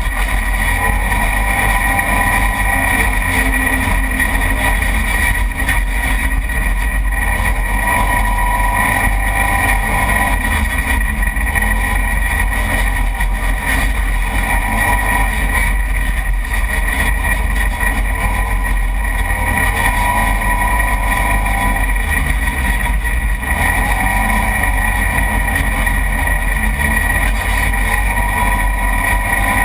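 Side-by-side UTV's engine running steadily at speed on a dirt trail, heard from a camera mounted on the vehicle's hood. A heavy low rumble from wind and the rough ride runs under a steady whine.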